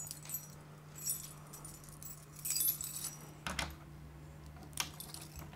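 Small metal items jingling and clinking in several short bursts as clothes and gear are handled at a metal clothes rack, with a couple of sharp knocks later on. A low steady hum runs underneath.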